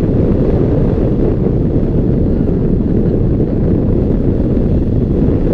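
Loud, steady wind rush buffeting the microphone of a camera mounted on a hang glider's wing in flight: the airflow of gliding.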